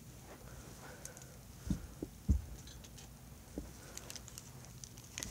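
A few soft, dull thumps and faint clicks of handling close to the microphone, over a quiet background; the loudest thump comes a little past two seconds in.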